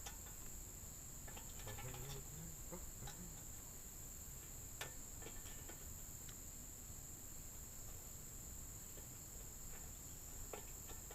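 Crickets chirring steadily in a high, even tone, with a few faint clicks and knocks.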